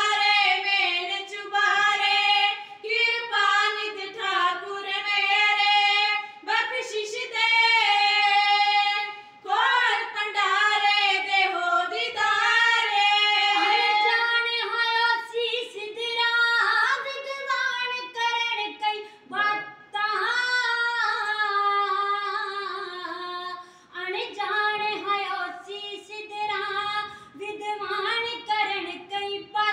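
Women singing kavishri, Punjabi Sikh devotional verse, without instruments, in high held notes that break into phrases; sometimes one voice sings alone, sometimes several sing together.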